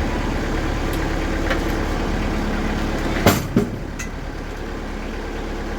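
TimberKing sawmill's diesel engine running steadily, with two loud knocks about three seconds in, a third of a second apart; the engine drops a little in level just after.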